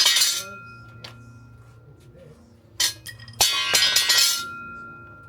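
Hard objects clinking and rattling: a loud clatter at the start, a single knock near the three-second mark, then a longer second clatter. A faint ringing tone hangs on after each clatter.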